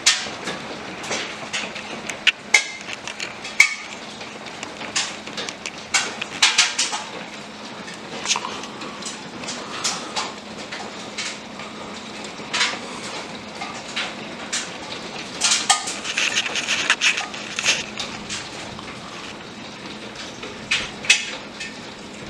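Small hailstones falling and striking hard surfaces, a scatter of irregular sharp clicks and taps, thicker in a couple of flurries, over a steady hiss of falling precipitation.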